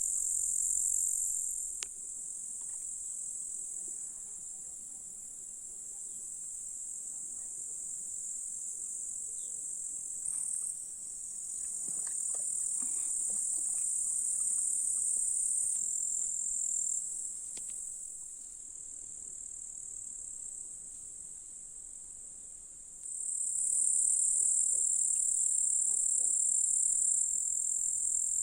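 A chorus of grasshoppers stridulating: a continuous high-pitched buzzing that jumps louder or softer suddenly a few times.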